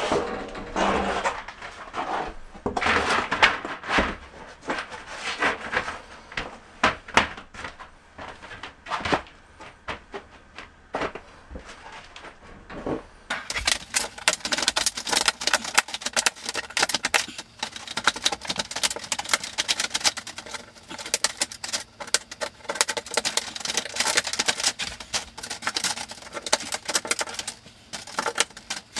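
Metal wire lath being handled and laid over felt paper on a shower floor: irregular rustling and scraping, then from about halfway a dense run of fast, light metallic clicks and crackles.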